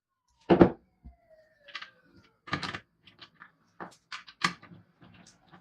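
A series of sharp knocks and clacks, about a dozen, from parts of a child's scooter being handled during restoration work, with two faint falling squeaks about a second in.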